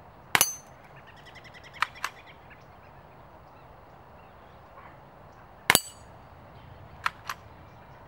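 Two shots from a Ruger 10/22 Takedown .22 rifle firing Aguila Super Colibri rounds, each a short sharp crack, about five seconds apart. Each shot is followed about a second and a half later by two quick, quieter clicks.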